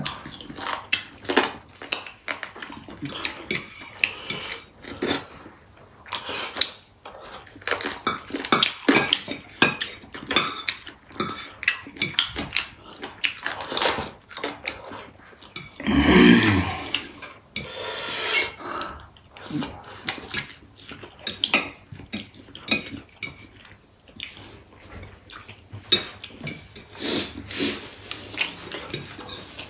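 Close-up eating sounds: forks clinking and scraping on plates, with noodles slurped and food chewed. A short vocal sound falling in pitch comes about halfway through.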